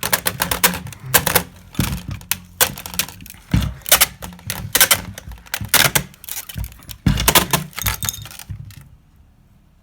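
A pointed metal tool being jabbed and struck repeatedly against a computer motherboard held in a vise. The sharp clacking hits come fast and irregularly, then stop about a second before the end.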